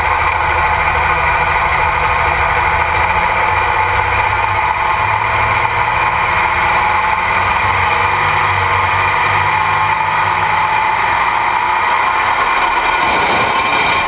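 Light modified pulling tractor's engine idling steadily at the start line before the pull, heard from on board; the sound changes about a second before the end.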